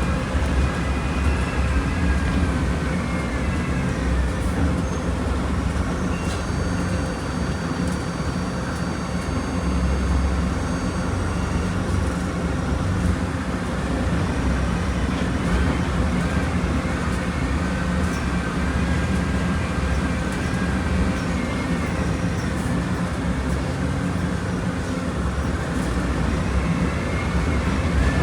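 Engine of a Volkswagen Volksbus 17.230 Euro 6 bus running steadily: a low drone with a faint high whine that wavers up and down.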